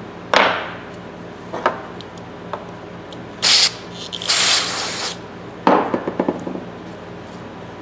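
Aerosol can of carb cleaner sprayed twice through its straw, two short hisses about a second apart, onto a rag and a rusty steel tap-handle part. Before them, knocks of the steel parts set down on the bench; after them a knock and a rag scrubbing the rusty steel.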